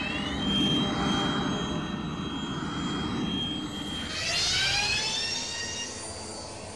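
Sci-fi spaceship engine sound effect: a high, steady jet-like whine, then a rising whoosh of several pitches sweeping up together about four seconds in, over a low rumble.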